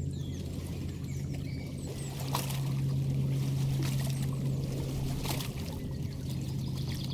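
Lakeside nature soundscape: water pouring and splashing in a few separate strokes, with small bird chirps, over a steady low drone.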